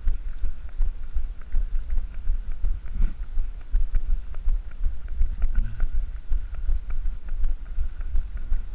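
Wind buffeting the microphone of a running runner's body-worn camera, a low rumble that swells and dips, with the small knocks and jolts of the runner's strides.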